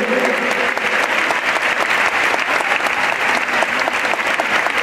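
Audience applauding: steady clapping in which individual claps stand out.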